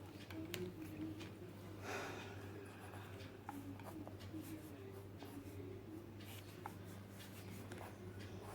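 Faint scratching of a pencil sketching on drawing paper, with scattered small clicks, over a steady low hum.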